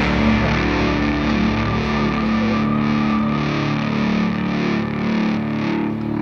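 Background rock music with distorted electric guitar holding steady sustained notes.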